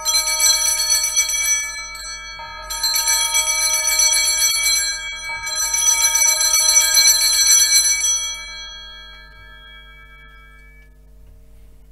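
Altar bells (Sanctus bells) rung at the elevation of the chalice after the consecration: three jingling shakes about two and a half seconds apart, the ringing dying away after the third.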